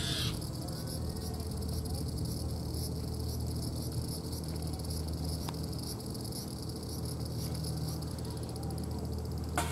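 Summer cicadas droning in a steady, high-pitched, rapidly pulsing chorus over a low steady hum, with a brief sharp click near the end.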